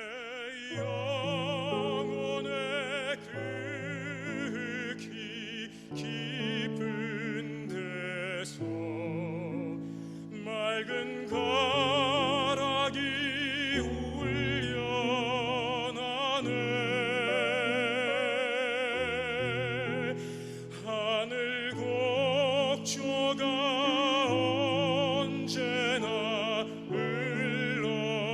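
Operatic tenor singing a slow hymn in Korean with wide vibrato on held notes, accompanied by piano chords.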